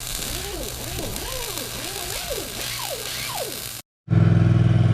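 A string of squeaky whines that rise and fall, over a hiss, for almost four seconds, then cut off abruptly. After a brief gap, a small engine idles steadily and louder.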